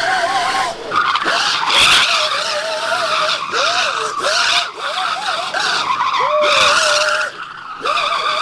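Electric shifter go-kart's tyres squealing on asphalt as it slides through donuts, the squeal wavering and arching up and down in pitch, with a short lull near the end.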